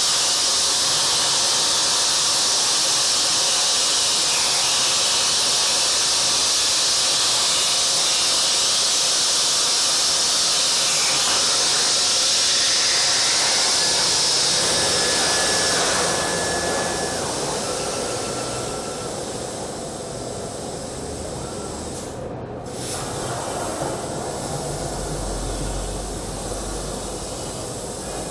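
Plasma cutting torch of a DIY CNC table cutting, a loud steady hiss of the arc and compressed air. About two-thirds of the way through the hiss drops away to a quieter rush of air.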